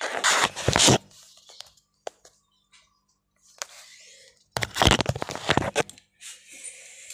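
Handling noise from a phone rubbing against a cloth shawl: two loud scuffing rustles, one in the first second and another about four and a half seconds in, with faint clicks and rustles between.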